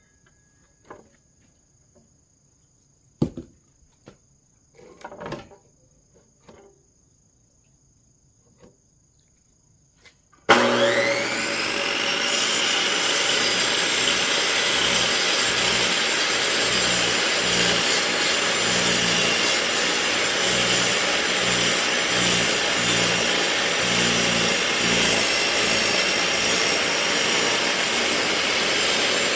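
Near silence with a few faint knocks, then about ten seconds in an electric log-cutting saw switches on, its motor whining up to full speed within a second or two and running steadily as it saws firewood.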